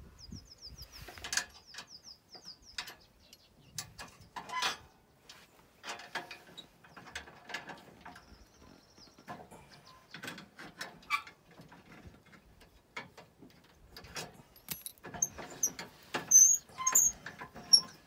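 Scattered metallic clicks and knocks of hand tools and steel mounting parts as a plow mount bolt and bracket are worked loose, with a quick run of light ticks in the first few seconds.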